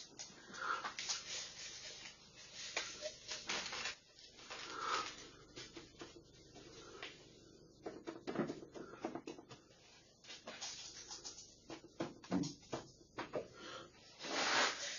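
Granular bonsai substrate being scooped and sprinkled into a bonsai pot and worked in by hand: irregular small clicks, crunches and rustles of grit.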